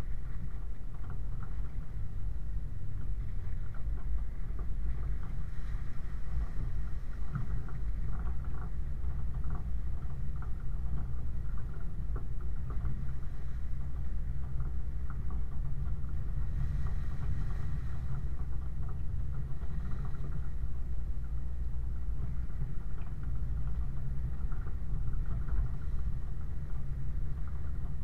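Land Rover 90 driving slowly along a wet, rocky track: a steady low engine drone, with many scattered clicks and knocks from stones and water under the tyres and the vehicle's body.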